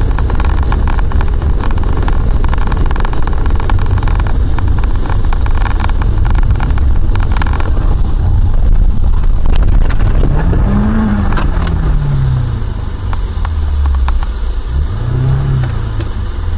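Road noise in a moving car's cabin: a loud, steady rumble of tyres and engine at speed, with many short clicks in the first half. In the second half a low hum rises and falls twice.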